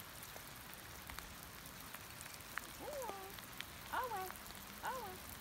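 Steady hiss of light rain falling on wet ground. About halfway in, three short animal calls come roughly a second apart, each rising and falling in pitch.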